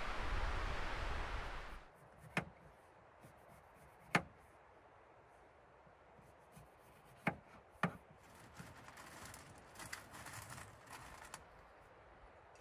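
Wind noise on the microphone for the first two seconds. Then, in a quiet snowy camp, four sharp knocks a second or two apart and a few seconds of faint scraping and rustling as camp gear is handled.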